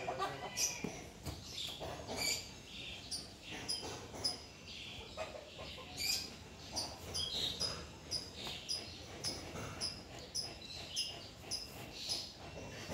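Small birds chirping: short, high chirps repeating irregularly throughout.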